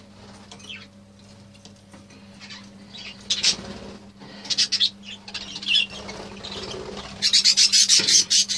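Budgerigars chirping in short, sharp calls, then a fast run of wing flaps about seven seconds in, the loudest part.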